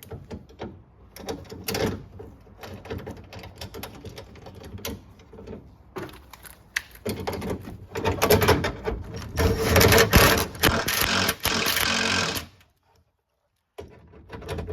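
A ratchet clicking rapidly as the 10 mm bolts and ground on a trunk latch actuator are tightened. The clicking gets louder and denser about halfway through, then cuts off suddenly.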